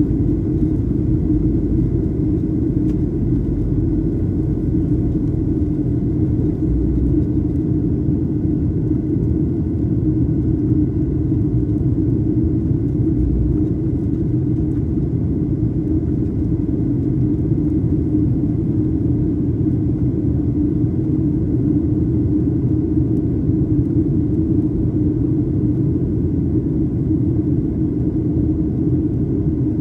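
Boeing 737-800 cabin noise on the approach: the steady low rumble of airflow and the CFM56-7B engines, with a faint steady high tone above it.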